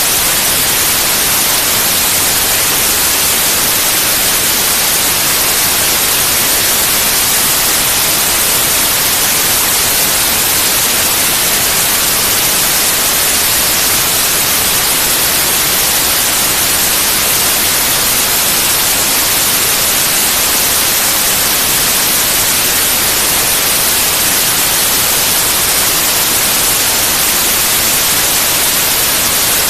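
Steady white noise: an even, unchanging hiss spread across the whole range, brightest in the high end.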